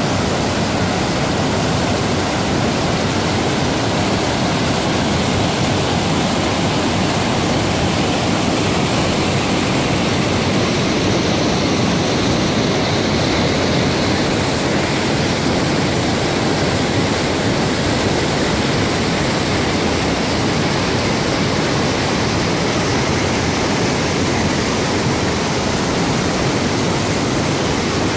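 Creek water rushing loudly and steadily down small falls and chutes over rock ledges.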